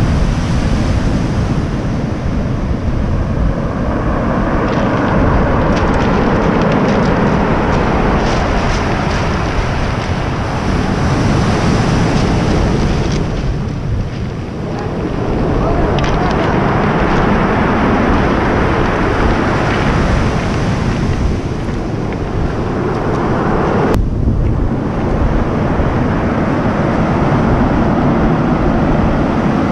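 Heavy surf breaking and washing up a pebble beach, swelling and easing with each wave, with a brief lull about halfway through. Wind buffets the microphone throughout.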